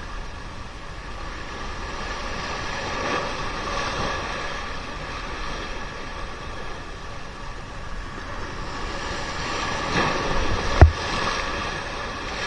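Sea waves washing in on the shore, with wind. The wash swells twice, a few seconds in and near the end, and a sharp thump comes shortly before the end.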